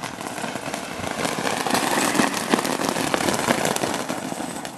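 A firework fixed to the back of a homemade go-kart burning and spraying sparks: a loud, crackling hiss that builds over the first couple of seconds and tapers off near the end.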